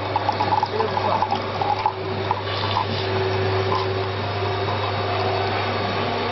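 Electric pomegranate juicer running, its motor giving a steady low hum, while juice runs from the spout into a jug. The sound is choppy for the first couple of seconds, then settles.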